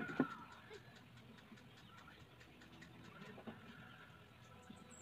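Quiet outdoor ambience with a soft, fast, regular high ticking, and two light knocks right at the start.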